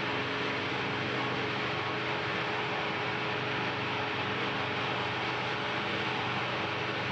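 Steady mechanical hum with an even hiss, no starts or stops: the machinery raising the service gantry arms around the Soyuz-FG rocket.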